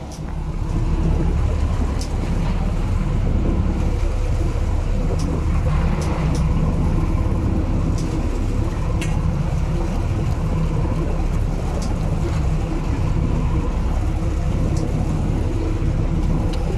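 A marine engine running steadily: an even low rumble with a light hum over it and a few faint clicks.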